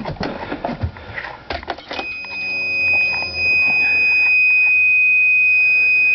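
A few clicks, then from about two seconds in a car's warning buzzer sounds one steady high tone without a break, as the ignition is switched on ahead of a first start attempt.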